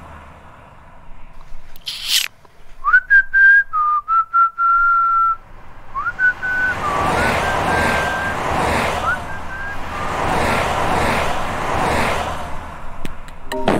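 A person whistling a short tune in two phrases, with small slides in pitch, over a hiss that swells and fades about every second and a half. A short sharp noise comes just before the whistling starts.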